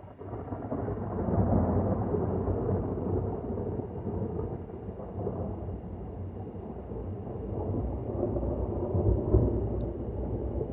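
Thunder from a lightning strike: a low rumble that comes in suddenly, swells about a second in, eases off, then swells again near the end.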